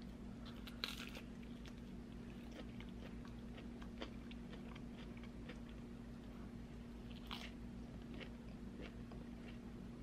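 Close-miked eating of a flaky cream cheese danish: a crisp crunch as the pastry is bitten about a second in and again about seven seconds in, with soft chewing and small mouth clicks in between.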